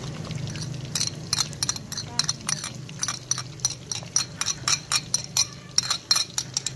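Metal spoon scraping and tapping garlic paste off a ceramic plate into a karahi: a rapid run of clinks, a few a second, starting about a second in, over a low steady hum.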